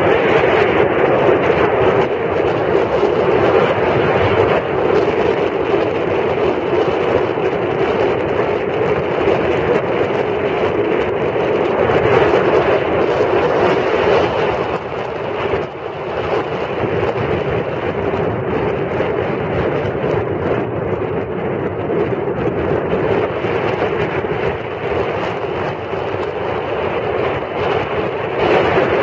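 Brisbane CityCat catamaran ferry under way: a steady, loud drone of its engines and rushing water, dipping briefly about halfway through.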